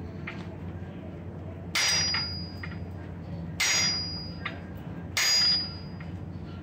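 Hand forging: hammer blows on a wooden-handled tool held against a red-hot iron bar on the anvil. There are three heavy strikes about a second and a half apart, each with a short metallic ring, and lighter taps between them.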